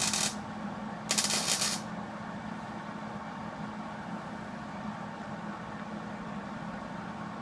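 Hobart 135 MIG welder laying tack welds on sheet-steel rocker panel: two short bursts of crackling, each under a second. One stops just after the start and the other comes about a second in. A steady low hum runs underneath.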